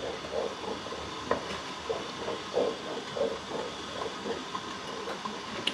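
A spoon stirring thick carp roe in a stainless-steel bowl set over a steam bath, with repeated soft scraping strokes about two to three a second over a faint steady hiss, and a light click or two against the bowl.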